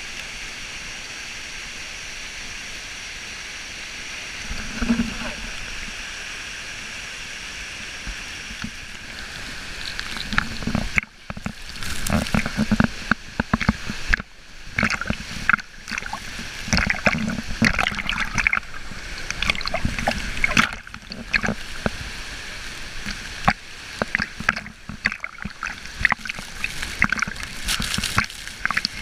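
Steady rush of a waterfall. From about ten seconds in come irregular splashes and sloshing of water close to the microphone.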